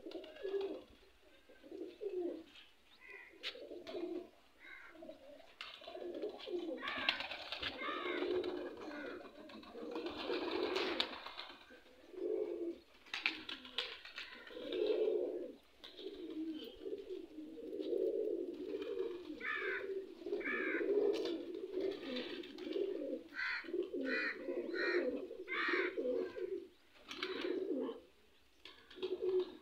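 Domestic pigeons cooing over and over, in low rolling coos one after another. There is a louder, noisier spell about a quarter of the way through, and short high chirps in the second half.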